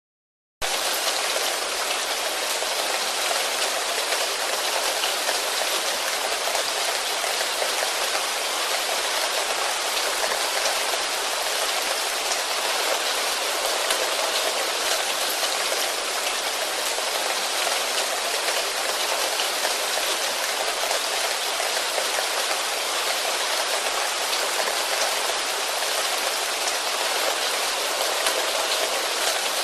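Steady rain falling on forest foliage, a dense even patter of drops without pause, starting abruptly just after the beginning.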